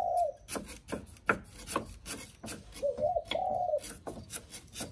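A knife chopping on a wooden cutting board in irregular strokes, about three a second. A dove coos in the background, briefly at the start and again in a longer phrase about three seconds in.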